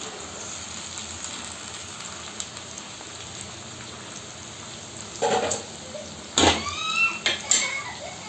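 Chopped tomatoes and onions frying in hot oil in an iron kadhai, a steady sizzle. In the last three seconds, louder sudden sounds and a pitched call that bends in pitch cut in over it.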